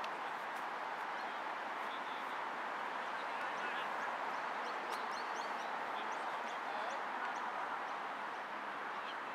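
Steady outdoor background hiss, with a run of short, high, rising bird chirps through the middle.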